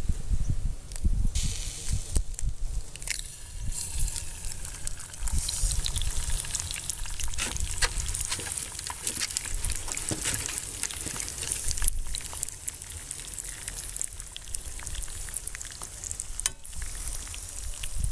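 Egg frying in hot bacon grease in a cast iron skillet: a steady sizzle with small pops, breaking out about a second in as the egg goes into the pan. Wind rumbles on the microphone underneath.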